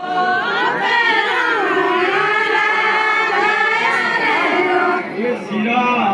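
Voices singing a Kumaoni jhoda-chanchari folk song together in chorus, the melody rising and falling; the singing dips briefly about five seconds in.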